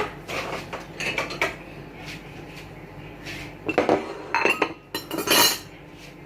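Dishes and cutlery clinking and clattering as food is handled: a few knocks about a second in, then a busier run of clinks with short ringing from about four to five and a half seconds in.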